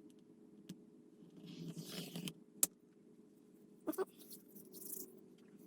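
Faint handling of small model parts by hand: light rustling and scraping with a few sharp clicks, over a steady low hum.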